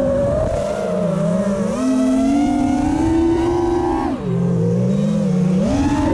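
FPV quadcopter's brushless motors and propellers whining, the pitch rising and falling with the throttle. The pitch drops sharply about four seconds in as the throttle is cut and climbs again about a second and a half later.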